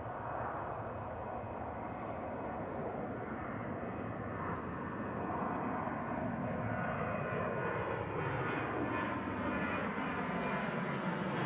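Jet airliner engines running, growing louder, with several tones gliding steadily downward in pitch as the jet passes.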